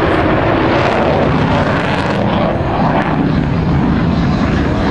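Loud, steady engine noise of a jet aircraft flying a display overhead.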